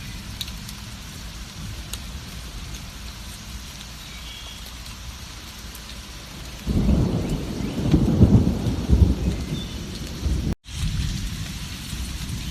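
Steady heavy rain, with a loud rolling rumble of thunder breaking in suddenly about halfway through and lasting about four seconds. Near the end the sound cuts out for an instant before the rain resumes.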